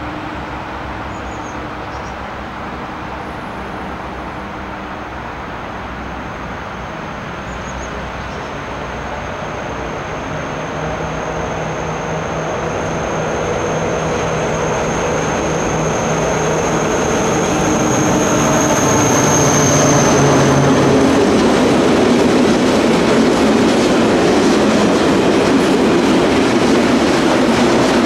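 A Vossloh G1700BB diesel locomotive hauling a heavy coal train, its engine working hard with a steady note as it approaches and grows louder, passing about twenty seconds in. A thin high whine sounds while it approaches. Once the locomotive is by, the loaded hopper wagons rumble and clatter past.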